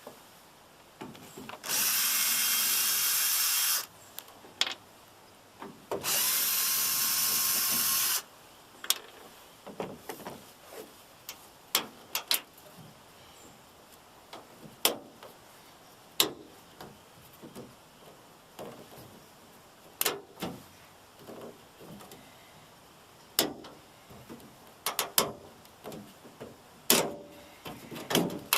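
Cordless drill/driver running twice, about two seconds each, as it backs out the screws holding the truck's taillight housing. After that come scattered clicks and knocks of the taillight assembly and bulb sockets being handled.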